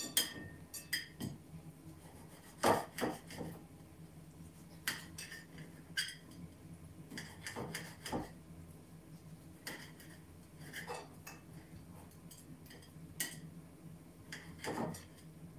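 Kitchen knife clicking and scraping against a ceramic plate as food is cut on it: irregular sharp clinks about once a second, a few louder ones about three seconds in and near the end, over a low steady hum.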